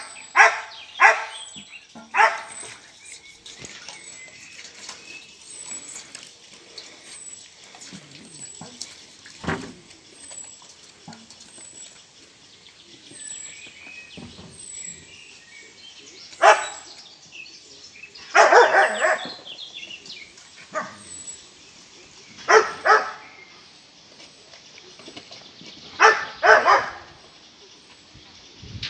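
Schipperke puppies yapping: short, high barks in small clusters, a few near the start and more in the second half, with quiet stretches between.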